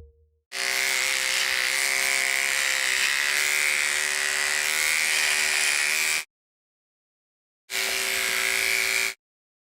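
Electric hair clipper buzzing steadily: one run of about five and a half seconds, a pause, then a shorter run of about a second and a half. Each run stops abruptly.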